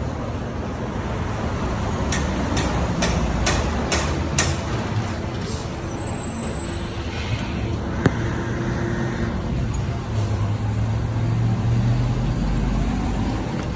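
City street traffic noise, a steady rumble of passing vehicles. A few seconds in there is a run of about six sharp ticks, roughly two a second, then a single sharp click, and a low hum swells near the end.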